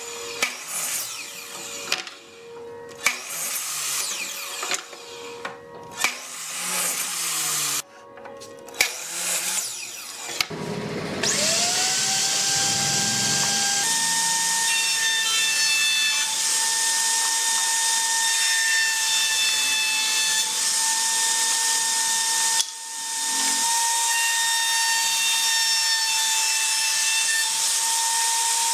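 Knocks of wood being handled. Then, about ten seconds in, a router mounted under a router table spins up with a rising whine and settles into a steady high whine, running at full speed as a wooden strip is fed past the bit.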